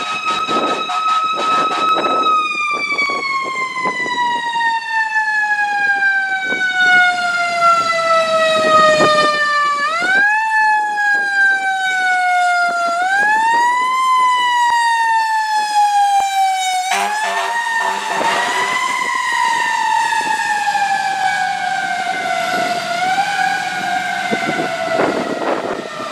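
Fire engine's mechanical siren: a steady wail that slowly winds down, is wound back up twice, and coasts down again as the engine passes. A short lower horn blast sounds about two thirds of the way through.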